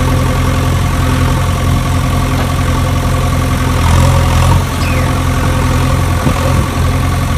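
A large engine idling steadily, a low, even hum.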